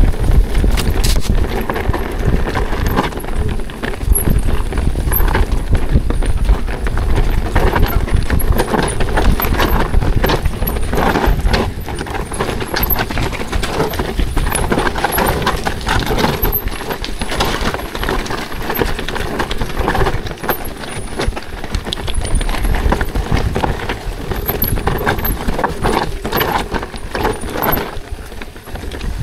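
ProPain Ekano 2 CF mountain bike ridden down a rocky trail: a continuous rapid clatter of tyres, suspension and drivetrain knocking over rocks, with wind rumbling on the camera's microphone.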